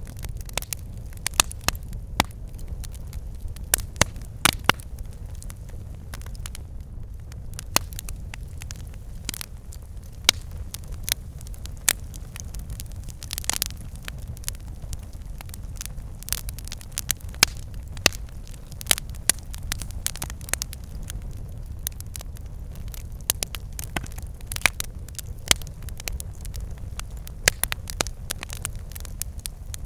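Campfire burning, with frequent irregular sharp crackles and pops over a steady low rumble of the flames.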